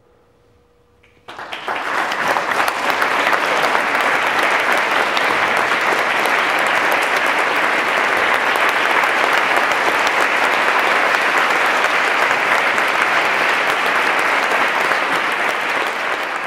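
An audience breaks into applause about a second in, cutting across a faint steady tone, and keeps clapping steadily, starting to fade near the end. It is the applause at the close of a dance performance.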